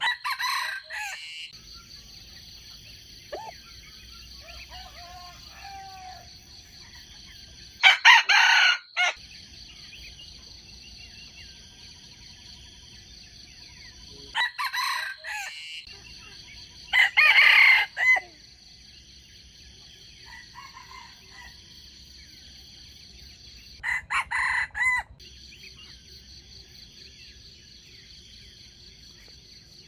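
Wild rooster crowing: five short crows spaced several seconds apart, over a steady high-pitched buzz.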